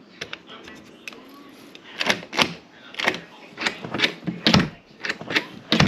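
Sharp clicks and knocks from a door's knob and latch hardware being worked, sparse at first and then coming about twice a second, with a few heavier thuds.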